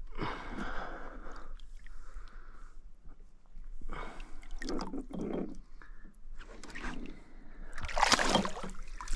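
Water sloshing and splashing as a snook is held in the water beside a boat to revive it, with a loud splash about eight seconds in as the fish kicks free and swims off.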